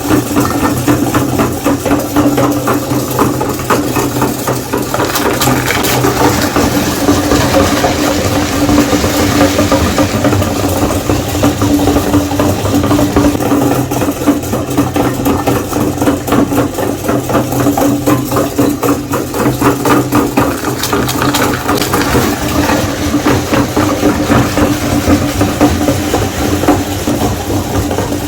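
Electric meat grinder running: a steady motor hum with many small clicks over it as it grinds Oreo cookies.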